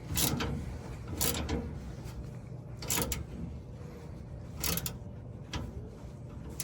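Hand ratchet wrench clicking in short strokes, about five bursts roughly a second and a half apart, as the leaf spring clamp bolts are loosened.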